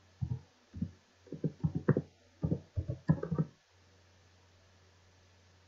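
Computer keyboard typing: about a dozen irregular keystrokes over three and a half seconds as a word is typed, then it stops. A faint steady low hum runs underneath.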